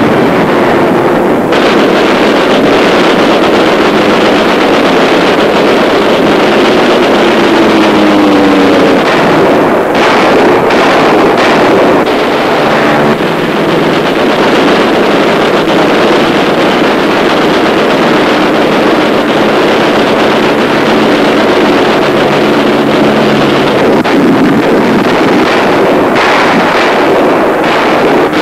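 Dubbed sound effects of WWII fighter aircraft piston engines running at high power over a steady rushing noise, the engine pitch sliding slowly down in places. There are sharp crackles about ten seconds in and again near the end.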